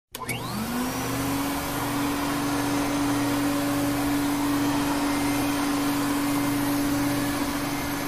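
Roidmi Eve Plus vacuum motor starting with a sharp click and spinning up over about half a second, then running steadily with a constant whine and rush of air.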